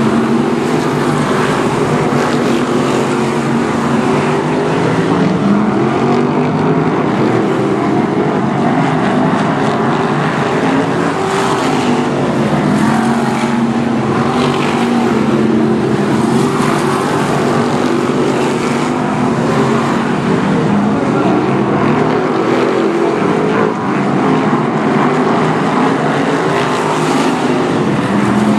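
Several BriscA F1 stock cars' V8 engines running together in a race, the engine notes rising and falling as the pack revs up, backs off and sweeps past. The sound is loud and unbroken.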